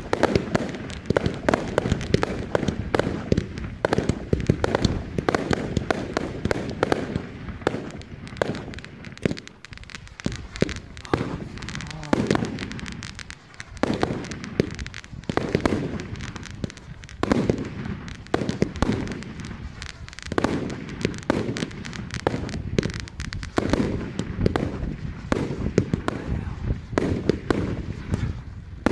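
Fireworks display: a dense, continuous barrage of bangs, pops and crackling from aerial shells and ground fountains, easing off briefly about halfway through.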